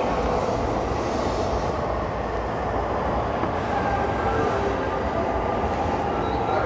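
Running sound inside a Tokyo Waterfront Area Rapid Transit 70-000 series renewed train under way: a steady rumble of wheels on rail, with faint high tones coming in about halfway through.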